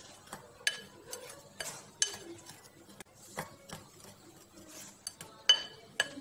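Dry flour and cocoa mix being stirred in a bowl: a utensil scrapes around the bowl and taps its side in irregular clicks, the loudest about five and a half seconds in.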